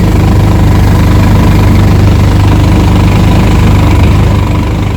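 Small motorcycle engine of a Philippine tricycle (motorcycle with sidecar) running steadily and loudly, easing off slightly near the end.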